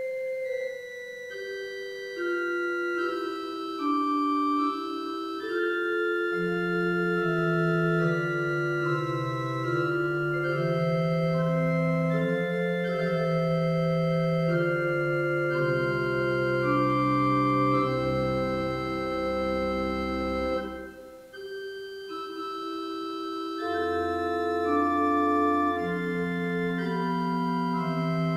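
Church organ playing a slow prelude in sustained, overlapping chords, with bass notes joining after a few seconds. The music breaks off briefly at the end of a phrase about three-quarters of the way through, then goes on.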